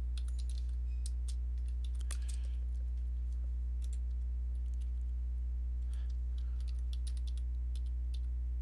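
Computer keyboard keys being typed, in scattered, irregular clicks, over a steady low electrical hum.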